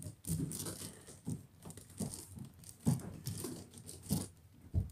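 Play-tent fabric rustling and crinkling with scattered soft bumps as a child shifts around inside the tent.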